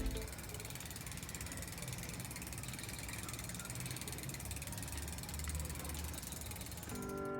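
Bicycle rear freewheel ticking rapidly and evenly as the mountain bike coasts, with a low rumble underneath.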